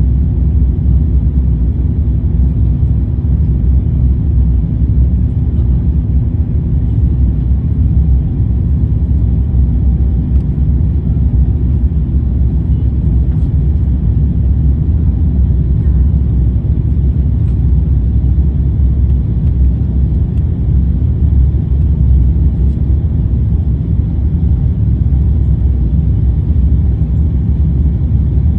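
Jet airliner cabin noise after takeoff: a steady, loud, low rumble of the engines and rushing air, unchanging throughout.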